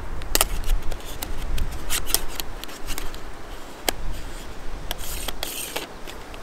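Sharp plastic clicks and short scrapes of a telephoto lens being handled on a tripod-mounted camera, as a lens hood or cap is fitted to its front, with a longer rustling scrape about five seconds in.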